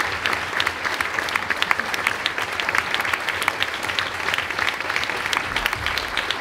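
Audience applauding: many people clapping in a dense, steady patter of claps.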